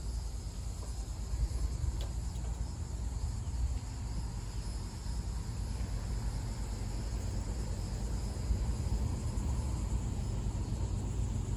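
Insects chirring steadily over a low, uneven rumble.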